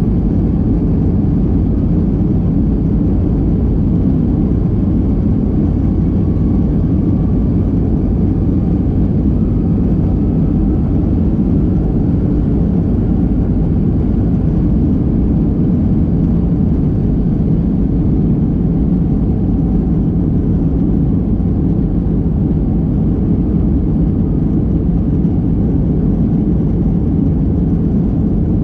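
Steady, low engine noise of an airliner heard from inside the passenger cabin.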